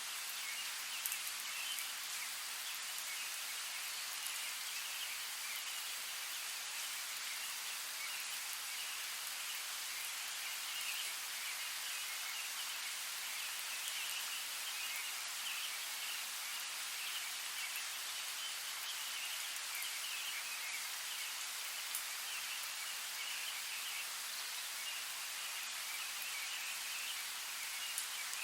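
Steady rainfall in a forest, an even hiss of drops on leaves and ground, with a few sharper close drop hits here and there.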